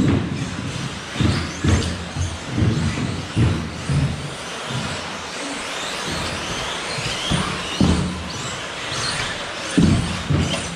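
Electric 1/10 scale 2WD off-road RC buggies racing on an astroturf track: motors whining as they rise and fall in pitch, tyres hissing on the turf, and repeated low thumps.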